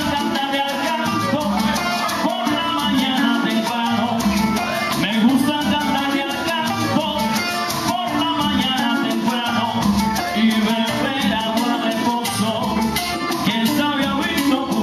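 Live Cuban son band playing, with maracas shaking a steady rhythm over plucked strings and hand percussion.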